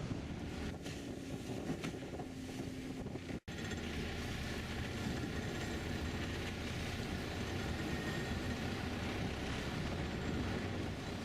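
Rescue boat under way on a test run: its engine and the hull on the water make a steady wash, with wind buffeting the microphone. The sound cuts out for an instant about three seconds in, then resumes slightly steadier and fuller.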